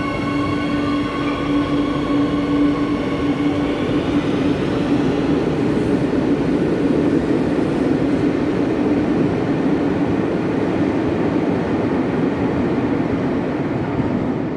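Madrid Metro electric train pulling out of an underground station. A steady motor whine with several high tones fades over the first few seconds and gives way to a steady rolling rumble of wheels on rail as the train runs off into the tunnel.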